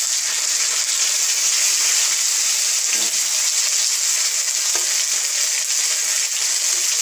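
Ginger, dried red chillies, bay leaves and panch phoron sizzling in hot oil in a kadai while being stirred with a spatula: a steady, even high hiss.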